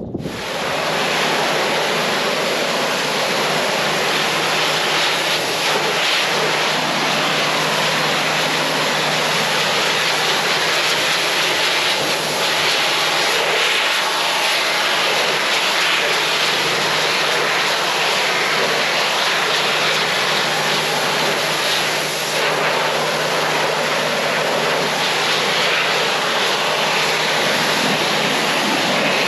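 Pressure washer running and blasting water in a loud, steady hiss over a low motor hum, starting abruptly.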